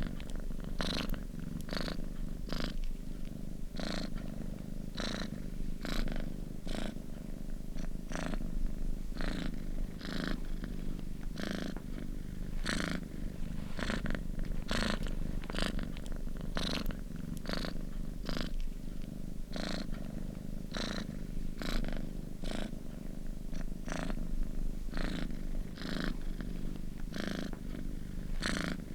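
Domestic cat purring steadily: a continuous low rumble that swells in an even rhythm with each breath in and out.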